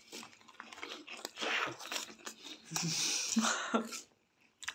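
Puffed cheese balls being crunched and chewed by several people eating them straight off plates with their mouths, with scattered small clicks and two louder stretches of noise around the middle.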